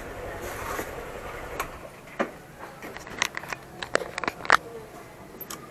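A low motorcycle rumble that cuts off about two seconds in, followed by a run of sharp clicks and taps of hands handling the handlebar-mounted phone and gear.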